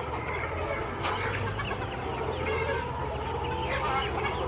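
A flock of native chickens (ayam kampung) clucking and chirping, many short overlapping calls.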